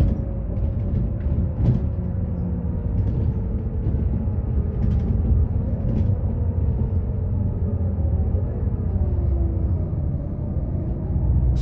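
Solaris Urbino 12 III city bus heard from inside the passenger cabin while driving: a steady low rumble of engine and road noise, with a faint whine that slides slowly down in pitch, rises again midway and falls once more, plus a few light rattles.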